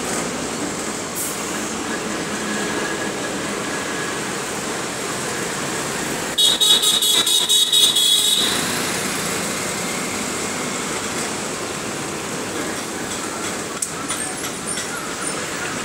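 Steady engine and road noise heard from inside a moving city bus. Midway, a loud vehicle horn sounds in a rapid stutter of short pulses for about two seconds.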